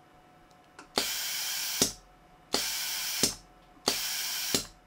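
Compressed air hissing through a pneumatic vacuum pick-up tool in three bursts of under a second each. Each burst starts and stops with a sharp click as the solenoid valve opens and closes.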